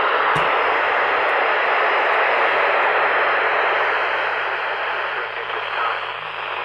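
Eton Zoneguard weather radio's speaker giving out loud, steady static on a weather-band channel, with a low hum underneath and a light knock about half a second in.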